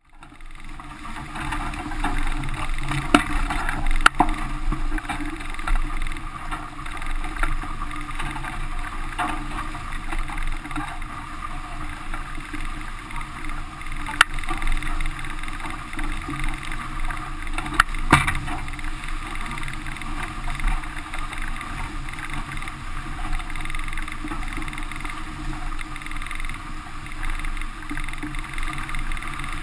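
A small sailing catamaran under way: steady wind rushing on the microphone mixed with water rushing along the hulls, broken by a few sharp knocks.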